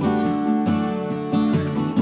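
Background music: a strummed acoustic guitar playing with a steady rhythm.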